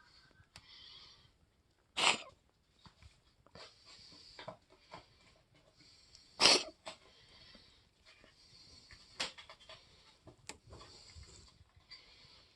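A cat coughing: two loud, sharp coughs, about two seconds in and again near the middle, with smaller hacking sounds and faint hissing breaths between.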